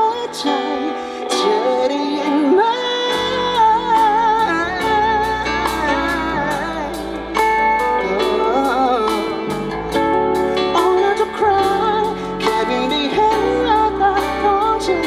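Live band playing a song with a sung melody over guitar; the bass and a steady beat come in about three seconds in.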